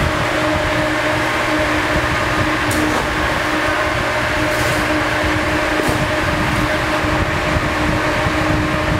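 Large overhead exhaust fan of a tornado chamber running steadily: a constant rush of air with a steady low hum. The fan is drawing the updraft that spins up the fog vortex.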